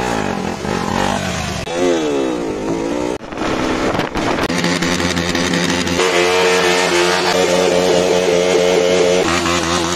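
KTM motorcycle engine revving, its pitch sweeping up and down several times, then held steady at high revs for about three seconds past the middle.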